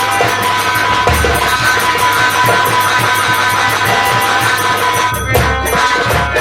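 Nautanki folk-theatre ensemble playing: a fast, even drumbeat under held melody notes, with a few deep drum thumps.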